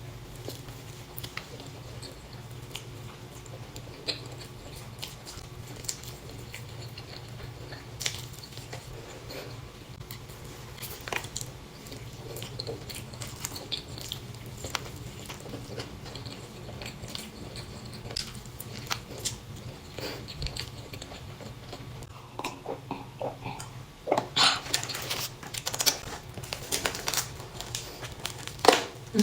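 A person biting and chewing Chinese pastries close to the microphone, with scattered small mouth and bite sounds over a faint steady low hum. Near the end comes a run of louder, sharper bite sounds.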